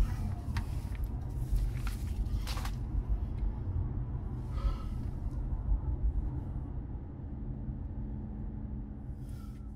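Steady low road-and-engine rumble inside a moving car's cabin, with a few short rustles and clicks in the first three seconds; the rumble slowly fades toward the end.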